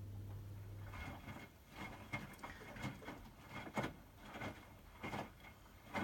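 Hotpoint WMFUG 942 washing machine tumbling a medium load of wet towels: soft, irregular swishes and splashes of water and laundry in the drum, a few a second. A low hum stops about a second in.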